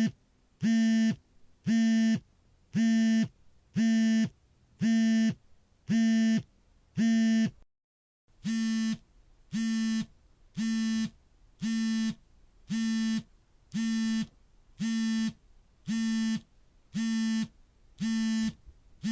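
Smartphone on vibrate buzzing as its alarm goes off in silent mode: a steady pattern of half-second buzzes about once a second. The buzzing drops out briefly about eight seconds in, and the buzzes after the gap are a little quieter.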